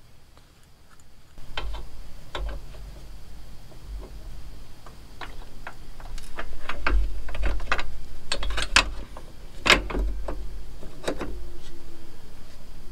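Small metal hardware, spacers and bolts, clicking and knocking irregularly as it is handled and fitted, over a low rumble, with a couple of sharper knocks about two-thirds of the way in.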